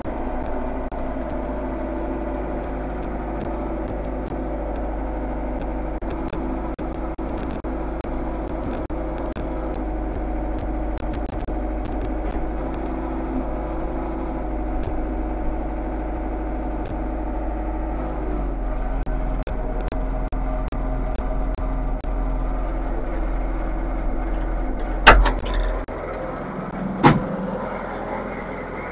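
Bobcat V417 telehandler's engine running steadily as the machine moves in and holds position, its pitch shifting about two-thirds of the way through. Two loud knocks come near the end.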